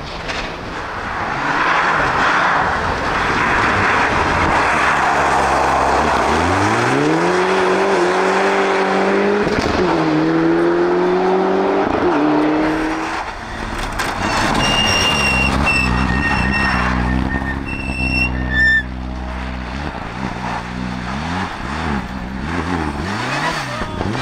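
Rally car on a snowy stage: tyre and engine noise rushing past, then the engine revving up hard as it accelerates away, its pitch climbing and dropping at each gear change. More engine revving follows in the second half.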